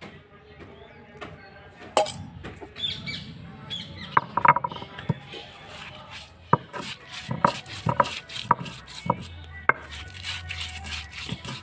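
Kitchen utensils knocking and clinking: a quick cluster of sharp strikes about four seconds in, then single strikes about every half second.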